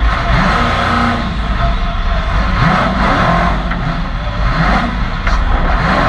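PRO4 short course race truck's engine under hard throttle, its pitch rising and falling repeatedly as the driver gets on and off the gas, recorded onboard over a heavy low rumble.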